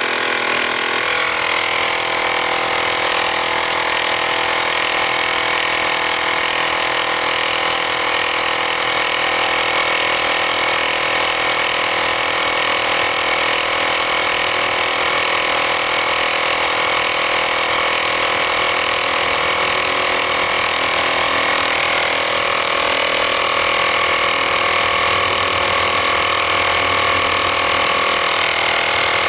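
Portable Air Hawk tire inflator's small motor-driven pump running steadily under load, pumping air into a lawn mower tire whose bead is being held in place by a ratchet strap.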